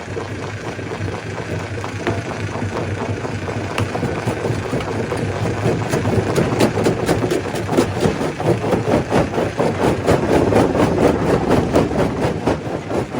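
Stone crusher running with a steady engine hum; from about five seconds in, a dense clatter of rock cracking and knocking builds up and the sound grows louder.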